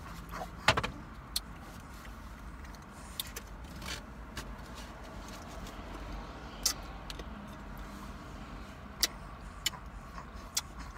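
A few sharp smacks and clicks of someone eating chicken wings by hand from a foam takeout box, the loudest about a second in, over a steady low hum inside a car.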